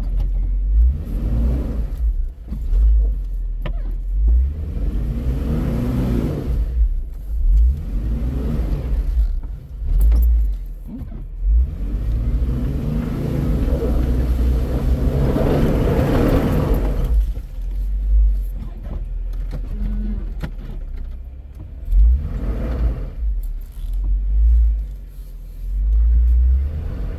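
Jeep engine revving in repeated surges as it crawls over rocks, the longest and loudest push coming about halfway through, over a heavy low rumble.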